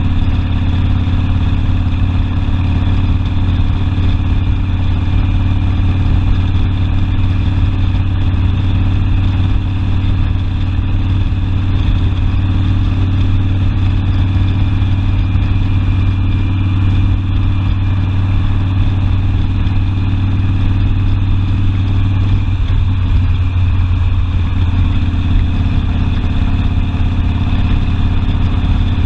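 Harley-Davidson Sportster's air-cooled V-twin running steadily under way, its low exhaust note holding an even pitch, with a slight change in the note about three quarters of the way through.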